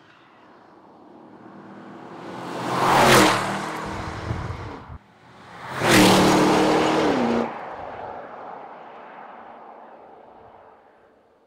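Two cars drive past at speed one after the other, about three seconds apart. Each engine note rises in loudness as it approaches, then drops in pitch as it goes by, and fades away after the second.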